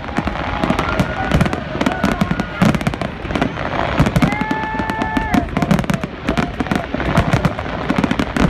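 Fireworks display going off: a dense, irregular run of bangs and crackles from many shells bursting at once, with a drawn-out tone sounding over them about halfway through.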